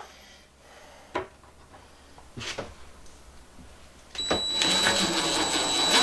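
A few light knocks of hardware being handled, then, about four seconds in, a cordless impact driver starts running with a rapid rattle and a steady whine, driving the mounting screw of a metal drawer pull.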